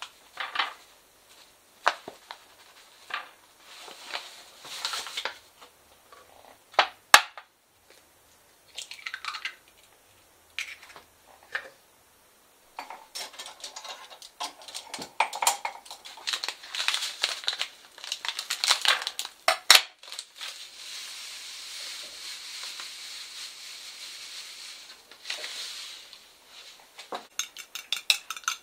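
Ceramic bowls, dishes and cutlery clinking and knocking during food preparation, with a steady hiss for several seconds past the middle. Near the end, a fork beats egg in a ceramic bowl in quick, regular clinks.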